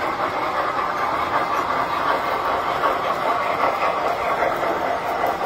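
Tinplate toy steam locomotive pulling a string of hopper cars along the track, its wheels and motor making a steady, even running noise as it passes close by.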